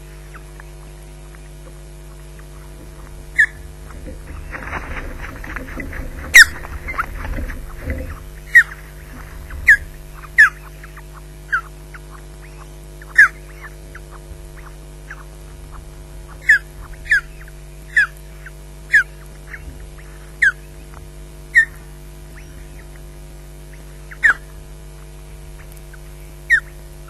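Ospreys calling: short, sharp, high whistled calls that fall in pitch, about one every second or two. From about three to eight seconds in comes a rushing, rustling burst of wings and sticks as a second osprey lands on the nest, with the loudest call in the middle of it. A steady low electrical hum runs underneath.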